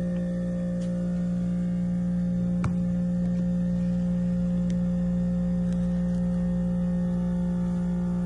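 Heat pump humming steadily with a low, even drone and a fainter higher tone, the sound the owner says seems stuck while an insulated pipe vibrates and runs hot. A single sharp click about two and a half seconds in.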